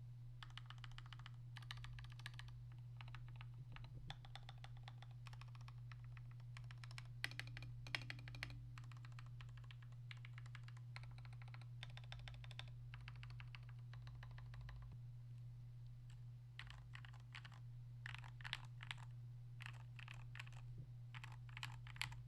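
Typing on a TM680 custom keyboard fitted with lubed Gateron Milky Yellow linear switches and PBT XDA-profile keycaps: runs of fast keystrokes in bursts with short pauses, over a steady low hum.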